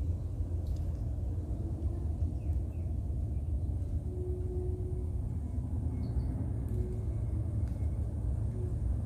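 Steady low outdoor rumble at an even level, with a faint, thin high-pitched whine above it.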